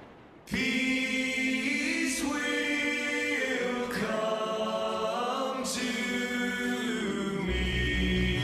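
Intro music of choral voices singing held chords, starting about half a second in, with a pulsing low bass coming in near the end.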